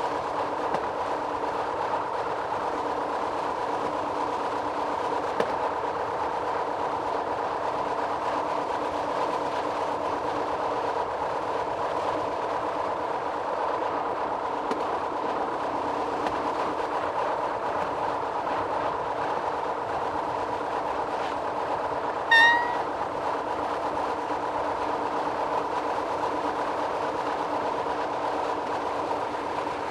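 Metre-gauge electric passenger train running steadily, with a constant hum of several steady tones over the rolling noise. About two-thirds of the way through, the train's horn gives one short, loud toot.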